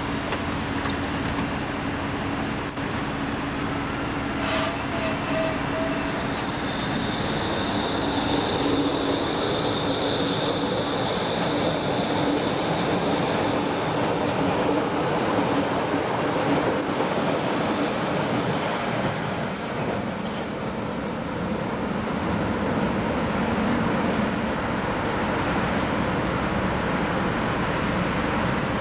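Berlin U-Bahn class IK electric train pulling out of the station: a few short beeps about four seconds in, then a steady high whine as it starts moving, followed by the running noise of wheels on rails as the cars pass close by.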